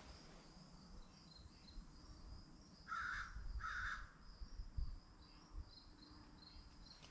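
A crow cawing twice in quick succession about three seconds in, over a steady, high, pulsing trill of insects.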